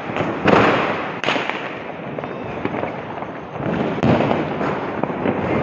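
Fireworks and firecrackers going off around a city at night: a few sharp bangs, about half a second in, just after a second and at about four seconds, over constant crackling and scattered pops.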